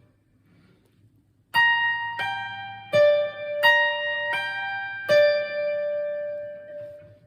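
Guitar playing a phrase of six single notes in G minor pentatonic on the two highest strings. It starts about a second and a half in, and the last note is left ringing out.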